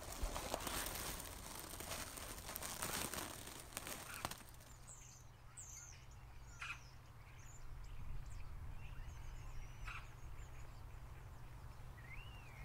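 Close rustling of grass and plant stems for the first four seconds or so, then faint small-bird chirps and calls over a low steady hum, with a few sharp ticks. Near the end a clearer rising-and-falling bird call.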